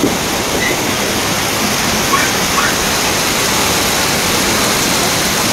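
Fast, muddy floodwater rushing in a torrent along a flooded street, a steady loud rush of water.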